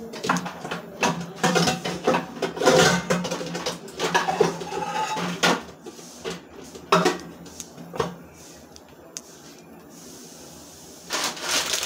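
Metal pots and pans clattering and knocking together as a frying pan is pulled out from among the kitchen utensils. There is a dense run of clanks for the first six seconds, single knocks around seven and eight seconds, and one more clatter near the end.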